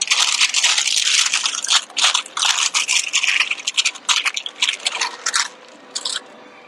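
Plastic packaging crinkling and rustling as it is handled, in a run of uneven bursts that dies away about five and a half seconds in.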